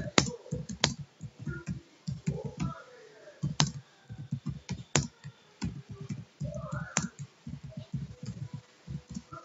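Typing on a computer keyboard: a quick, irregular run of key presses, with a few louder, sharper clicks standing out.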